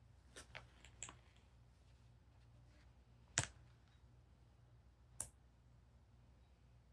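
Small plastic building-block pieces being handled and clicked together: a few soft clicks in the first second, then two sharper snaps nearly two seconds apart, the first the loudest.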